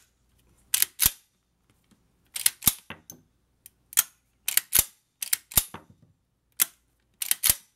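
Lion X4 Tactical semi-automatic shotgun's bolt being racked back and let slam forward again and again: a series of sharp metallic clacks, mostly in quick pairs. Each cycle ejects a shell and chambers the next one from the magazine, until the gun is run empty.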